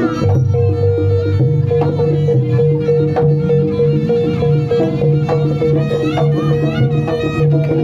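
Live East Javanese jaranan ensemble accompanying a barong dance: steady drum strokes with gongs, a long held tone beneath, and a high wavering melody over the top.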